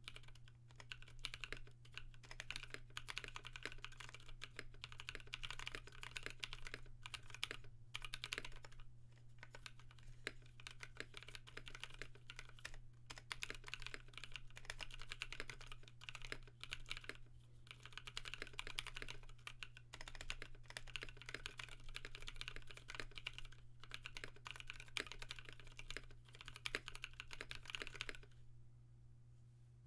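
Steady typing on a custom mechanical keyboard: lubed NovelKeys Cream linear switches on an aluminum plate in an acrylic Tofu case, with PBT keycaps. The key presses clack rapidly with a few short pauses and stop shortly before the end, over a faint steady low hum.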